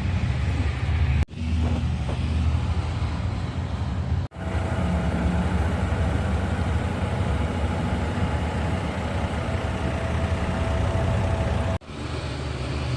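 Heavy diesel engine of a Liebherr R9200 mining excavator running steadily with a deep rumble. The sound cuts out abruptly three times for a split second.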